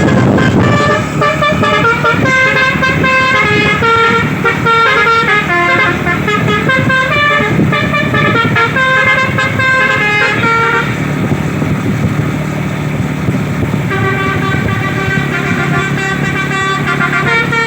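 Basuri 'telolet' multi-tone horn playing a melody as a quick run of short stepped notes. The tune thins out about eleven seconds in and starts up again some three seconds later.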